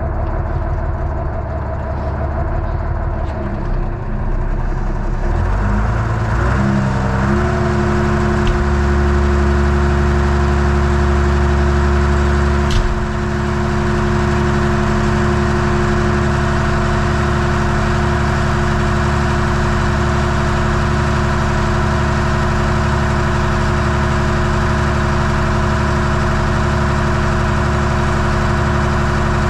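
Tractor diesel engine running, its speed rising over a few seconds from about four seconds in and then held steady at a higher, even pitch. A short clack about halfway through.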